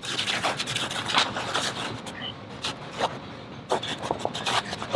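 Small hand brush scraped in rapid, repeated strokes across a tufted rug's yarn pile, raking out loose fibres.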